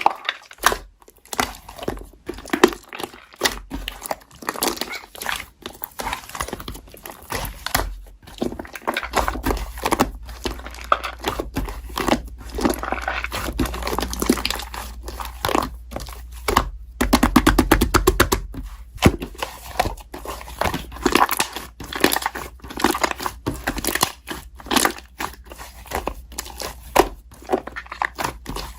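Slime being squished, pressed and poked by hand, with many small sticky clicks and crackles. A little past halfway comes a fast, louder run of clicking pops, and a faint low hum sits underneath from about a third of the way in.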